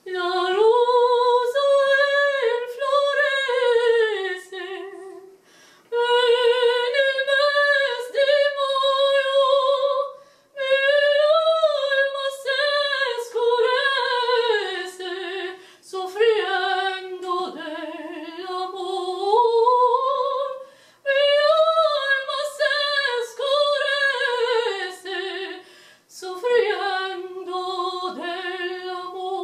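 A woman singing solo and unaccompanied, with vibrato, in long phrases of about five seconds, each ending in a short pause for breath.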